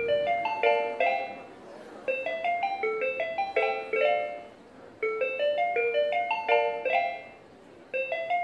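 Background music: a bright tune of quick, short pitched notes running up and down in phrases of about two seconds, with brief pauses between phrases.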